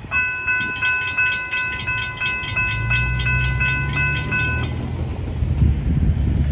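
Railroad crossing bell ringing at about three strokes a second while the gate arms rise after the train has cleared, stopping a little over four seconds in. A low steady rumble comes in underneath from about halfway.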